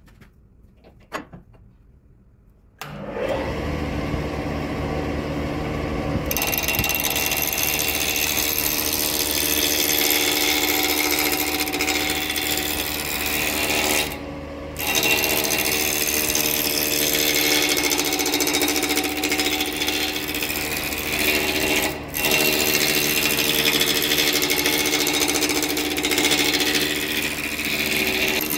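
Wood lathe switched on about three seconds in, its motor running with a steady hum. From about six seconds a gouge cuts into the spinning square wood blank, adding a loud rough scraping hiss over the motor that breaks off briefly twice as the tool is lifted.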